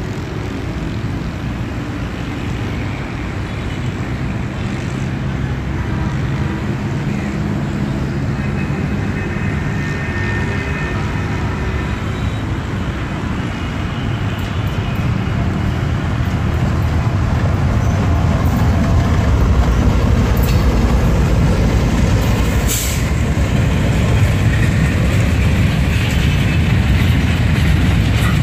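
Container freight train hauled by a GEU-40 diesel-electric locomotive, approaching and passing: a low engine and rail rumble that grows steadily louder. The second locomotive, an HGMU-30, is failed and hauled dead. A single sharp click comes near the end.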